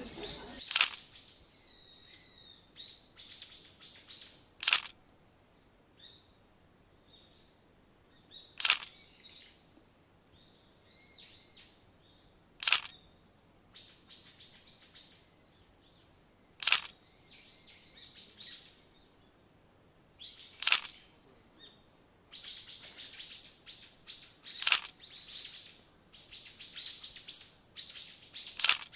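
Small birds chirping in quick runs of notes, with a sharp click about every four seconds that stands out as the loudest sound.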